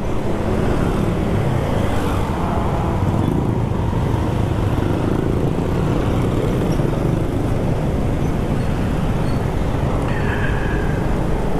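Steady road and wind noise while riding an old Yamaha Mio scooter through traffic, with its single-cylinder engine running underneath and other vehicles around.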